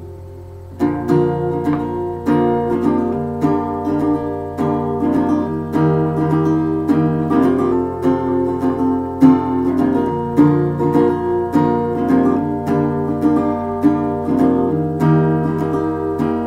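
Guitar strummed in a steady rhythm of full chords, starting about a second in after a brief pause, over a faint steady low hum.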